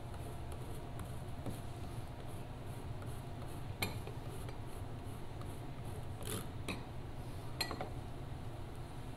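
A block of Parmigiano Reggiano rubbed on a stainless rasp grater: faint scraping with a few light metal clicks, over a steady low hum.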